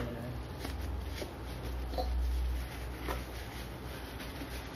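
Plastic bubble wrap crinkling and rustling with scattered small clicks as it is pulled off a metal watch tin, over a steady low hum.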